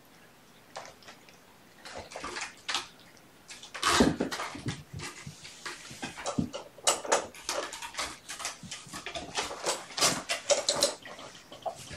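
Kittens playing with toys: an irregular run of scratching, rustling and clattering, sparse at first, then busy from about two seconds in, with its loudest knock about four seconds in.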